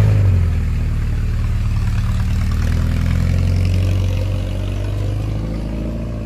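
Small pickup truck's engine running steadily as the truck pulls away at low speed, growing fainter near the end as it moves off.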